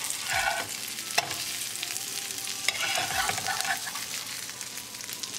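Breaded Dover sole fillets sizzling steadily in hot olive oil on a tawa while a metal slotted turner flips them, scraping under the fish with two sharp clicks against the pan.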